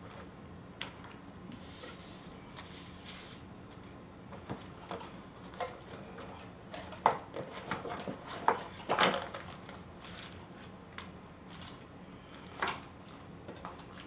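Hands rummaging through packaging and small parts: scattered clicks, taps and rustles, busiest a little past the middle, with one more knock near the end.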